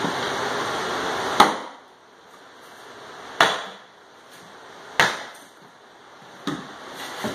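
Sledgehammer striking wooden 2x4 wedges driven under stapled-down particle board underlayment: four hard blows about one and a half to two seconds apart, the last one lighter. The blows drive the wedges in to pry the underlayment off the subfloor.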